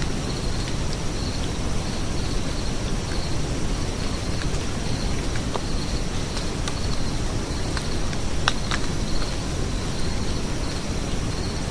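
Insects chirping outdoors: a faint high chirp repeating about two to three times a second over a steady high trill, set against a steady low rumble of noise, with a few scattered faint clicks.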